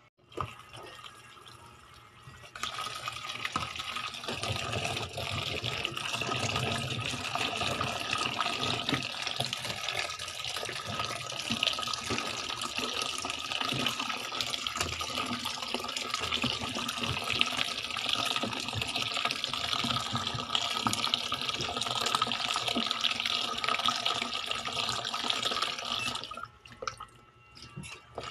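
Kitchen tap running into a bowl of sliced vegetables in a sink while they are rinsed by hand, water splashing steadily. The flow starts a couple of seconds in and stops shortly before the end.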